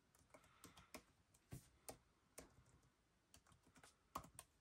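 Faint, irregular key clicks of typing on a MacBook Air laptop keyboard, about a dozen keystrokes spread unevenly.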